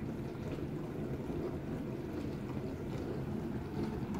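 Empty built-in dishwasher running a hot cleaning cycle with vinegar and baking soda: a steady churning of water spraying and sloshing inside the tub, plainly audible because the racks are empty.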